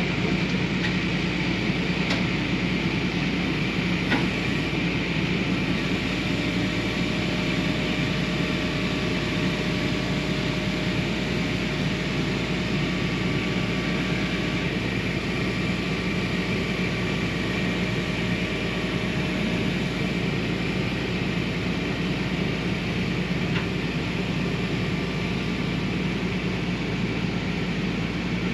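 A steady mechanical hum with a low drone and a thin high tone, unchanging in level throughout; a faint extra whine comes in for a stretch in the middle.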